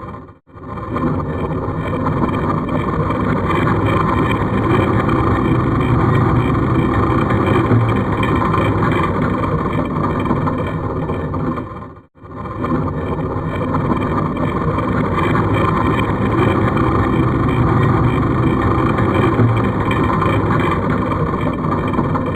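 Horror sound effect of a creepy mechanism: heavy stone grinding and scraping with a deep rumble, like an ancient rock door moving. It cuts out briefly and starts over twice, about half a second in and again about twelve seconds in.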